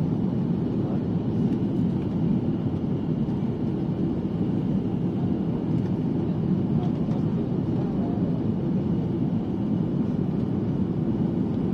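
Steady drone of an Airbus A330 airliner heard from inside the passenger cabin, engine and airflow noise, on approach to land.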